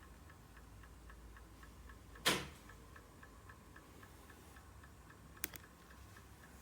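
Faint, even mechanical ticking, about four ticks a second, with a dull thud about two seconds in and two quick sharp clicks near the end.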